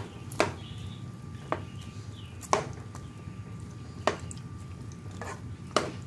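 A utensil stirring broccoli cheese soup in a pan, sloshing through the chunky broth and knocking sharply against the pan about seven times at irregular intervals, over a steady low hum.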